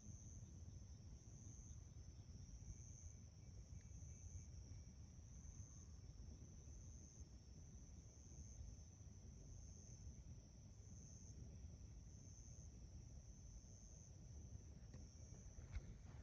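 Faint insects singing: a steady high trill with a second one pulsing about once a second, over a low outdoor rumble. A few light clicks near the end.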